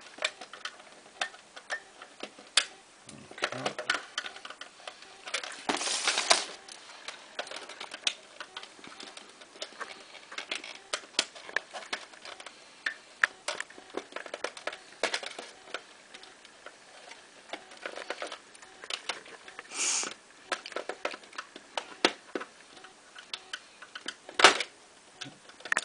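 A screwdriver tip and fingers clicking, tapping and scraping against the plastic quartz movement and its wire connectors inside a cuckoo clock while the night sensor wire is pressed into place. The clicks come irregularly, with brief scrapes about six and twenty seconds in and a sharp click near the end.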